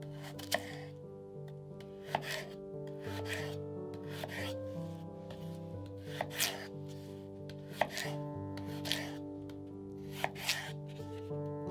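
Kitchen knife cutting through raw peeled potatoes and knocking on a wooden cutting board, an irregular crisp cut roughly once a second. Soft background music with sustained notes runs underneath.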